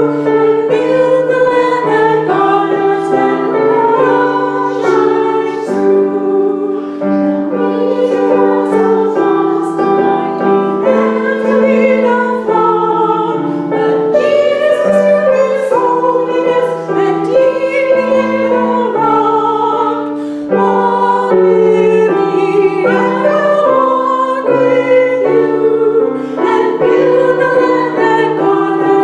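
A group of voices singing a hymn together, accompanied by piano.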